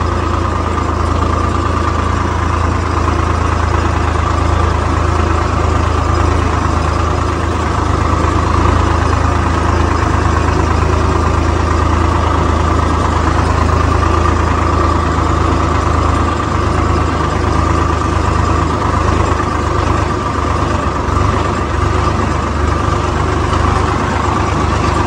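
Swaraj 855 tractor's three-cylinder diesel engine running steadily under way, heard from the driver's seat, with a deep, even engine note throughout.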